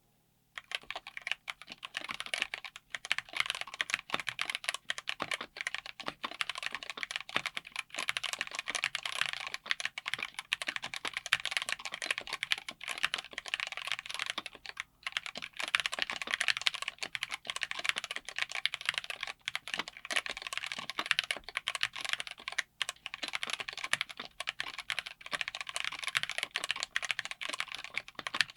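Mechanical keyboard with TTC x Pantheonkeys PT Black linear switches, on a DZ60 PCB with an FR4 plate in a Tofu60 aluminum case, typed on quickly and continuously, a dense run of keystroke clicks starting about half a second in.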